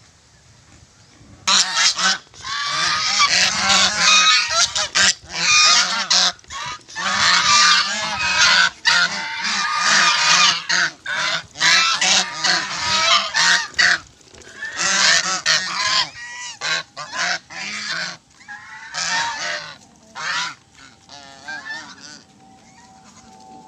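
A flock of domestic geese honking loudly, many calls overlapping, starting about a second and a half in and thinning to scattered honks in the last third.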